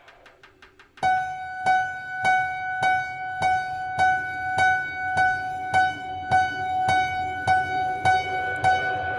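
Free-improvised music for prepared guitar, prepared piano and extended snare drum. Soft, quick pulsing gives way about a second in to a loud struck note repeated evenly, just under twice a second, over a steady ringing pitch.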